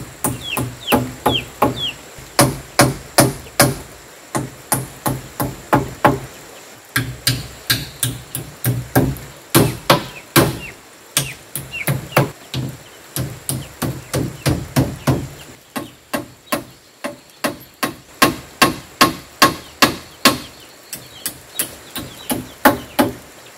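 A hammer driving nails into the wooden roof frame of a chicken coop, sharp strikes coming in runs of several at about three a second, with short pauses between runs.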